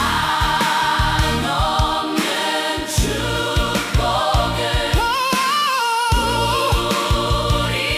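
Black gospel worship song: a choir sings over a band with a steady drum beat, and a solo voice rises and bends in pitch about five seconds in.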